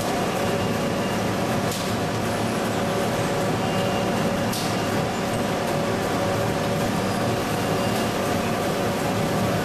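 Rubber preformer machinery running steadily with a hum of several steady tones, while a 60 kg batch of shoe-sole rubber compound is loaded. A couple of sharp knocks come about two and four and a half seconds in.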